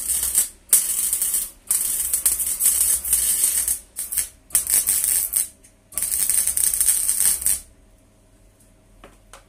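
Electric arc welding crackling and sputtering in a run of short bursts, about six in all, each a second or two long, stopping a little before the end: a steel roof rib being spot-welded back onto the van's roof.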